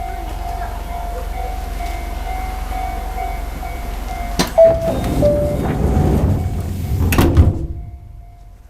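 Train passenger doors closing before departure: a steady tone sounds, then about four and a half seconds in a short two-note falling chime, and the sliding doors rumble shut, ending in a couple of knocks about seven seconds in.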